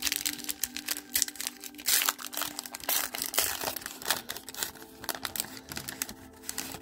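A trading card pack's wrapper being torn open and crinkled by hand: an irregular run of sharp crinkles and crackles.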